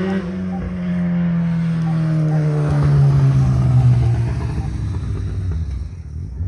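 A motor vehicle's engine going by close at hand. It grows louder to a peak three to four seconds in while its pitch falls steadily, then it fades.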